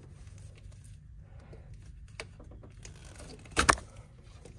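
Hand-work noises from repairing a car's wiring harness: a faint click, then one brief louder crackling snap about three and a half seconds in, over a low steady hum.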